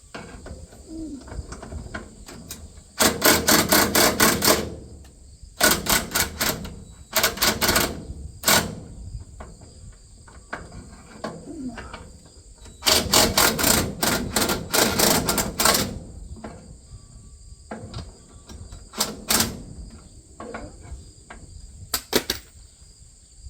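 Socket wrench driving a bolt home on a corn head's stalk roll, in bursts of rapid metallic clicking lasting one to two seconds, about seven times, with short pauses between.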